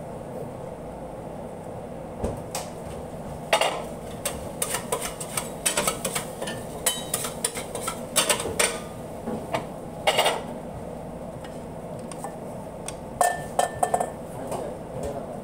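Metal spatula scraping and knocking on a stainless steel flat-top griddle in irregular clusters of sharp strokes. It starts a few seconds in and dies down near the end, over a steady background hum.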